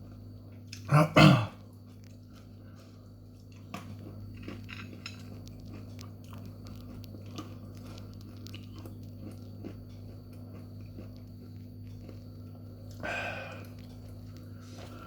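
A person chewing a mouthful of crunchy super-hot snacks, a long run of small crunching clicks. About a second in there is a short loud throat sound, and near the end a brief breathy burst, over a steady low electrical hum.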